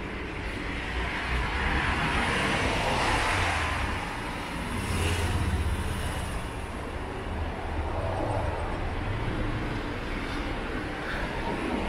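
City street traffic: vehicles passing by, the noise swelling and fading twice, with a low engine rumble underneath.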